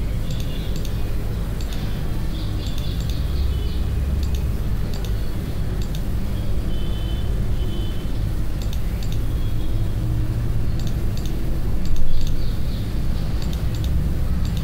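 Steady low rumble of background noise, with scattered light computer-mouse clicks and a brief louder swell about twelve seconds in.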